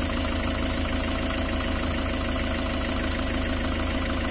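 Toyota Hiace engine idling steadily, with an even low pulsing.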